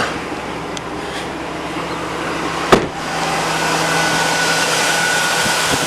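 2002 Chevy Avalanche's 5.3-litre Vortec V8 running at a cold idle just after starting from a week's sitting in the cold. There is one sharp click a little before halfway, after which the engine gets louder and a thin steady whine sets in.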